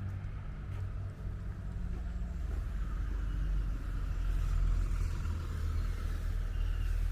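Street traffic: motor vehicles running close by, a steady low rumble with a swell of road noise in the middle.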